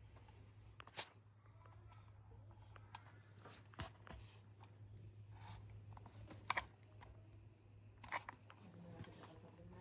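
Faint clicks and knocks of small parts being handled, four or five sharp ones spread out, the loudest about six and a half seconds in, over a steady low hum.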